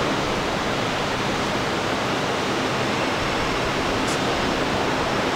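Steady, even rushing hiss with no change in pitch or level.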